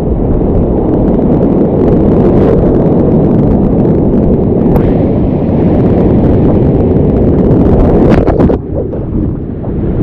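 Loud, steady roar of rushing whitewater, a dense rumble that eases briefly near the end.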